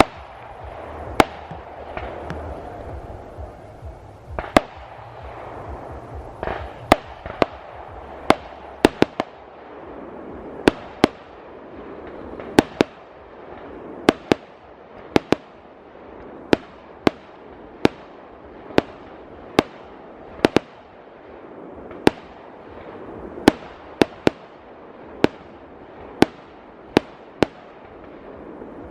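Fireworks display: a steady run of sharp bangs from bursting shells, about one or two a second, over a continuous hiss of noise between them.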